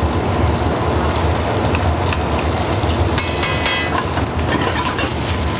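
Diced potatoes frying in a hot black steel skillet on a gas burner, sizzling steadily as minced garlic is spooned in. A brief metallic clink from the spoon against the pan about three seconds in.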